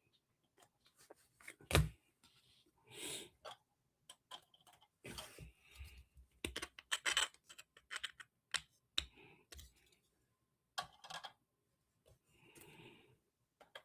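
Quiet, irregular clicking and tapping, typical of typing on a computer keyboard, with short rustling bursts in between.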